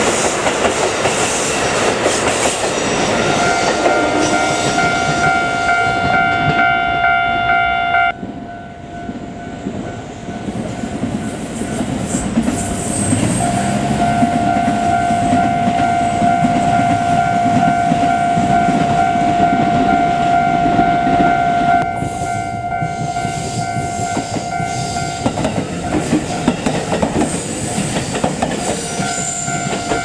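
Railway level-crossing warning bell ringing with a steady electronic tone while trains run past: first a JR diesel limited express passing close by with the rumble of its wheels, then another train beyond the crossing. The bell breaks off and starts again a few times.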